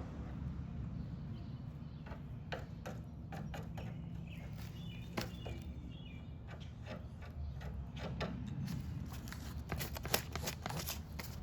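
Scattered light clicks and taps from handling tools and parts during bodywork, more of them near the end, over a steady low hum. A few short chirps about halfway through.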